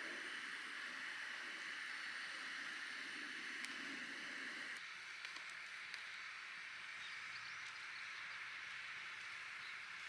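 Steady hiss of outdoor ambience, with a lower rush that drops away suddenly about five seconds in.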